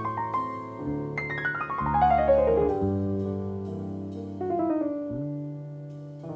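Background piano music: sustained low notes under quick runs of notes falling in pitch, one about a second in and another after four seconds.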